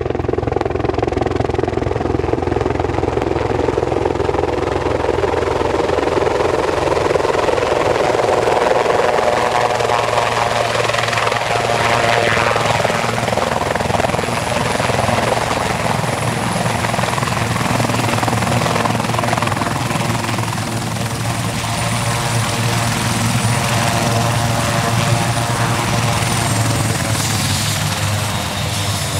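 Helicopter descending to land: steady rotor noise with a low rhythmic beat and a thin high whine. Near the end the whine drops slightly in pitch.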